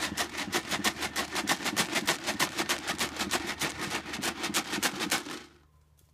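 Dry cat food rattled in a container, shaken rapidly and evenly at about six shakes a second to call kittens to feed, stopping near the end.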